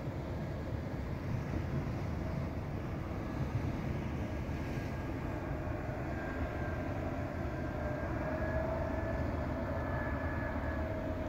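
Jet airliner on approach to land, heard as a steady distant engine rumble with a faint, steady whine.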